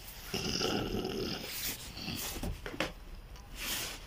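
An old man making wordless noises with his mouth full as he eats bread, in a few short irregular stretches.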